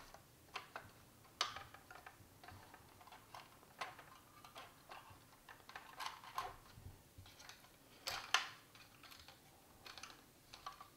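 Hard plastic parts of a 1979 Kenner Imperial Troop Transporter toy clicking and knocking as they are handled and worked apart by hand. The clicks are faint and irregular, and the loudest comes about eight seconds in.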